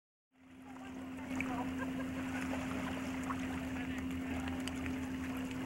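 Shoreline ambience fading in after a cut: a steady low hum under a light hiss of water and wind, with faint scattered ticks.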